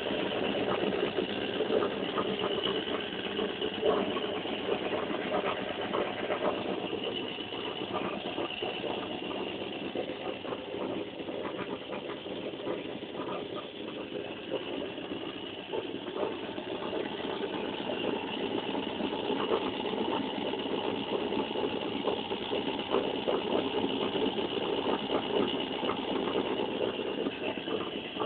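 Homemade magnet motor-generator running steadily, its rotor spinning past four coils with a continuous mechanical whir and a dense rattle of fine clicks.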